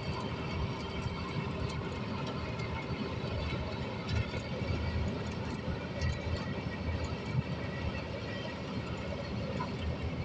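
Preet 987 4x4 combine harvester's diesel engine running steadily, a continuous hum of several steady tones over a low rumble.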